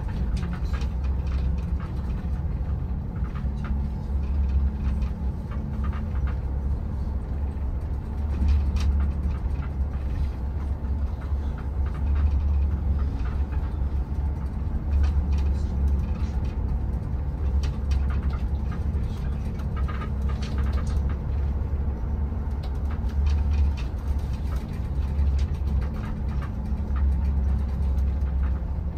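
Shuttle bus on the move, heard from inside: a steady low engine and road rumble with scattered light clicks and rattles.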